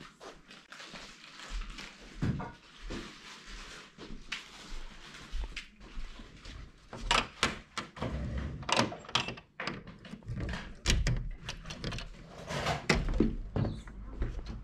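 Irregular knocks and thumps, growing denser and louder about halfway through.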